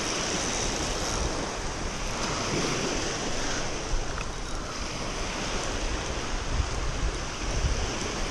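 Small waves breaking and washing up over a pebble beach, a steady surf wash, with wind rumbling on the microphone.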